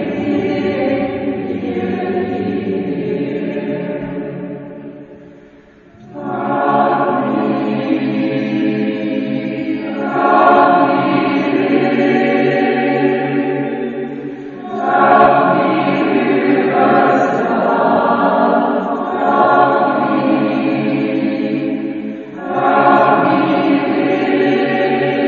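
Choir singing in long sustained phrases. The sound fades away about five seconds in, then the next phrase starts, with brief breaks between later phrases.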